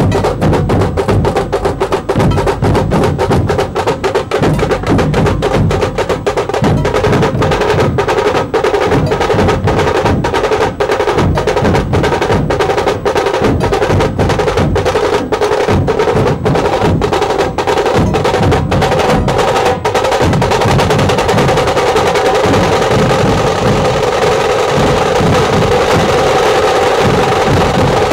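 Dhol tasha ensemble playing: large dhol barrel drums beaten with sticks in a fast, driving rhythm, with tashas rattling over them. About two-thirds of the way in, the separate strokes give way to a continuous roll.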